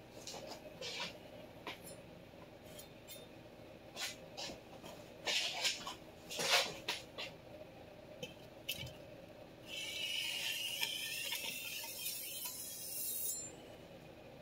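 Steel chef knife blade on a sharpening whetstone during finish sharpening: a series of short scrapes and clicks, then a steadier scrape lasting about three and a half seconds, ending shortly before the end.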